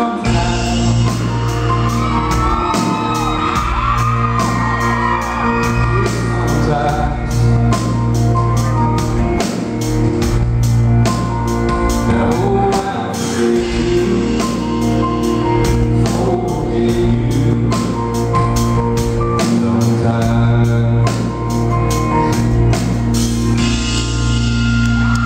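A live country band playing with a male lead singer, over a steady drum beat.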